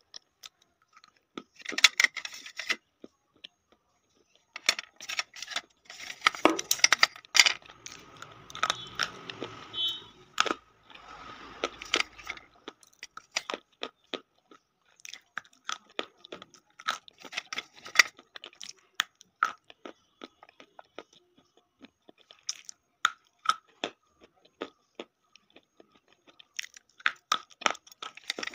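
Close-up biting and chewing of chalk sticks: crisp, irregular crunches and grinding chews in bursts, densest between about five and twelve seconds in.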